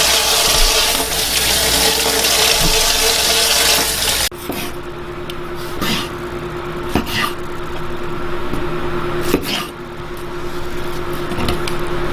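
Kitchen tap water running in a steady rush that cuts off suddenly about four seconds in. A low steady hum and a few light knocks of handling follow.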